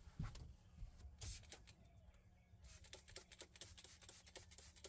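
Near silence: a few faint low thumps in the first second or so, then a run of light rapid ticks, from a person moving about and handling things in a boat.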